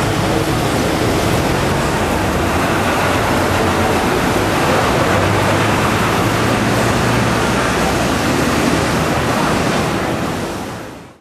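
Busy city street ambience: a steady wash of traffic noise with a low engine hum underneath. It fades out near the end.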